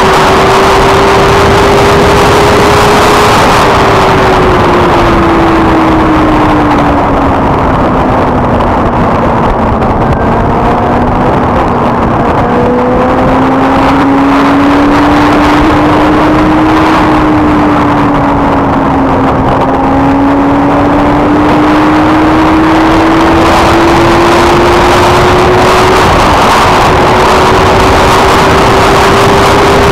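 Benelli TNT 600i's inline-four engine at high road speed, its note easing down over the first ten seconds as the bike slows from about 158 to 110 km/h, then climbing steadily as it accelerates back to about 157 km/h. Heavy wind rush on the microphone runs under it throughout.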